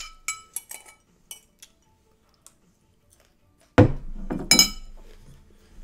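Metal cutlery clinking against dishes while eating: a few light ringing clinks at the start, then two louder clinks with a knock about four seconds in.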